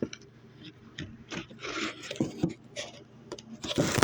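Handling noise: objects being shifted and rubbed close to the phone's microphone, with scattered small knocks and short rustling scrapes, loudest near the end.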